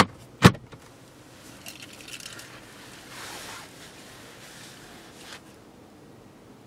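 A car glovebox lid shutting with one sharp thump about half a second in, followed by faint rustling and a soft click.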